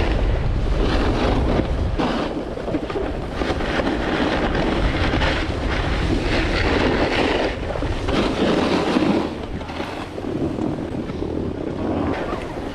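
Skis scraping and hissing over hard-packed artificial snow in repeated swells, as with each turn, under a steady low rumble of wind buffeting the action camera's microphone during a downhill run.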